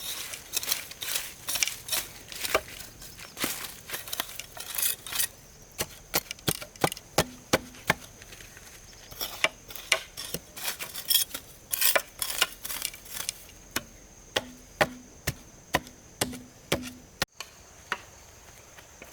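Repeated sharp chopping strikes at an irregular pace, a couple a second, over a steady high insect drone.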